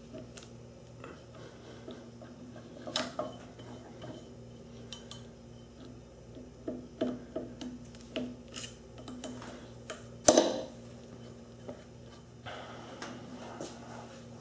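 Scattered metal clicks and clinks of a hex key working the set screws of a drill press's step pulley, and of hands moving the pulley, as the set screws are tightened onto the spindle. One sharp clank about ten seconds in is the loudest, over a faint steady hum.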